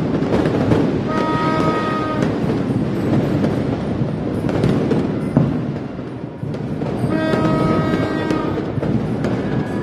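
Continuous New Year fireworks and firecrackers popping and banging in a dense crackle, with a steady horn tone sounding twice, each blast about a second and a half long.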